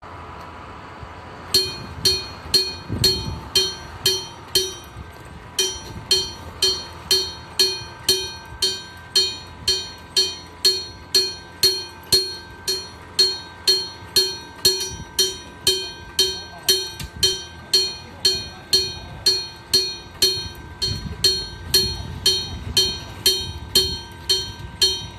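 Electric-bell (denshō-type) level crossing warning bell striking its gong over and over at about three strikes a second, starting about a second and a half in: the crossing signal warning of an approaching train.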